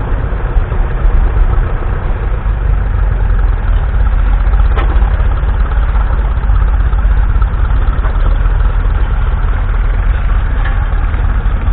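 Ferguson TED20 tractor's 2.1-litre four-cylinder TVO engine running steadily, its sound strongest in the low bass.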